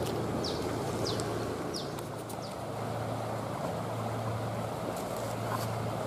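Steady rush of flowing river water under a low, even hum, with a small bird giving short falling chirps about every half second through the first few seconds.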